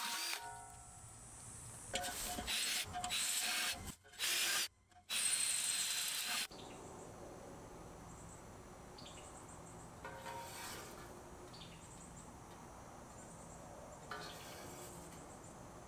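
Power drill with a twist bit boring through the wall of a 304 stainless steel mini keg: whining cutting noise in several short bursts that stop abruptly, the last about six and a half seconds in. After that, only a faint background with small high chirps and a couple of faint brushing noises.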